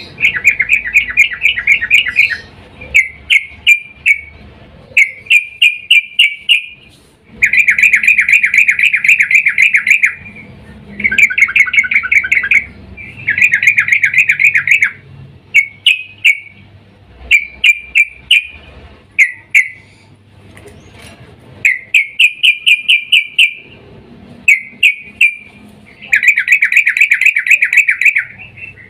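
Sooty-headed bulbul (trucukan) calling in fast chattering bursts of rapid notes, some lasting two to three seconds, broken by shorter phrases and brief pauses. The calls are those of a female in breeding condition calling to a male.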